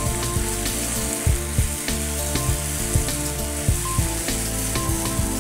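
Chopped onion, capsicum and green chilli sizzling in oil in a metal kadai with ginger-garlic paste, being fried until the paste loses its raw smell. A spatula taps and scrapes against the pan several times a second as it is stirred.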